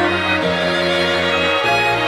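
Instrumental background music with sustained string chords. The chord changes twice, about half a second in and again about a second and a half in.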